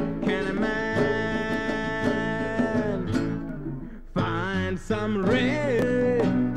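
Early-1970s demo song recording with acoustic guitar and singing: a long held note, a brief drop about four seconds in, then a wavering sung line.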